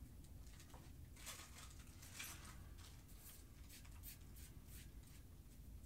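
Faint, irregular crackling and rustling of styrofoam packing being handled.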